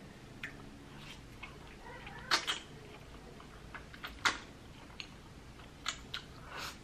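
Close-miked slurping of jjajangmyeon black bean noodles: a few short slurps and wet mouth sounds, the loudest about two and four seconds in, with another slurp near the end.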